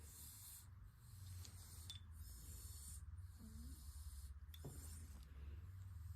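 Small black cat breathing through a badly congested nose: faint, hissing snuffles, about one breath a second, over a low steady hum.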